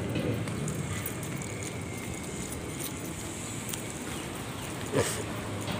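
Street noise: a steady wash of traffic, with one sharp knock about five seconds in.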